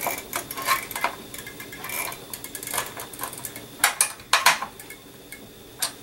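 Irregular clicks, taps and light scrapes of metal and plastic as hands and a screwdriver work inside a small desktop computer case, fastening the CPU cooler fan. A few sharper clicks come about four seconds in and just before the end.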